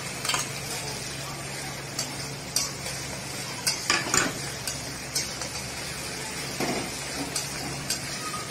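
Spatula stirring onions and spices frying in oil in a metal kadai: a steady sizzle with irregular scrapes and taps of the spatula against the pan.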